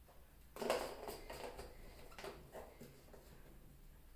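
Handling noise from plastic containers: a soft plastic refill pouch of floor cleaner rustles and knocks as it is set down about half a second in, followed by a few lighter clicks and taps from handling.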